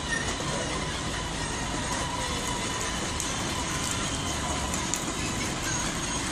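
Steady outdoor background noise: a low rumble and hiss with a faint steady tone, no distinct events.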